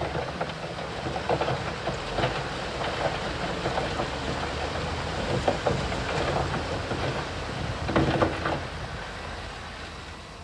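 Heavy earthmoving machinery at work: a diesel engine running steadily under scattered clanks and crunches of metal and stone. A louder crunching clatter comes about eight seconds in, after which the sound eases off.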